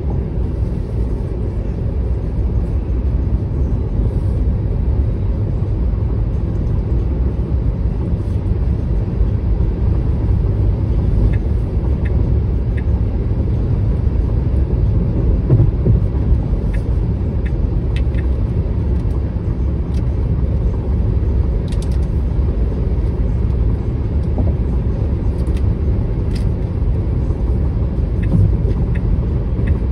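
Steady low road rumble of a Tesla Model 3 cruising at highway speed, mostly tyre noise on concrete pavement.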